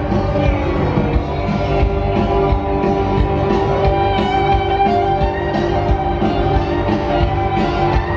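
Country-rock band playing live through a stadium sound system: electric guitar over a steady drum beat.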